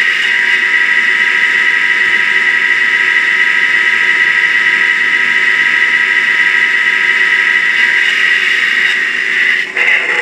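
Howes sound chip in a Bachmann OO-gauge Class 37 model locomotive playing its recorded English Electric diesel engine sound through the model's small speaker, running steadily just after start-up with a steady high tone over it. The sound dips and changes briefly near the end.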